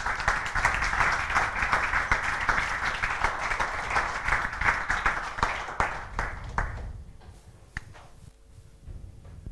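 An audience applauding: dense clapping that lasts about seven seconds, then dies away to a few scattered claps.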